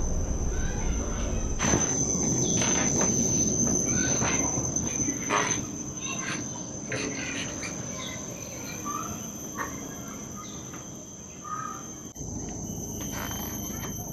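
Rainforest insects droning steadily at one high pitch, with scattered short taps and brief bird notes over it.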